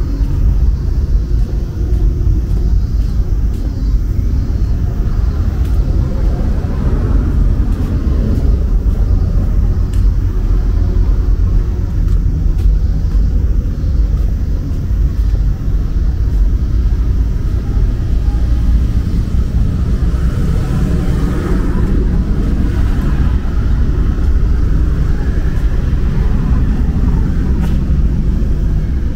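Steady low rumble of city street ambience with traffic.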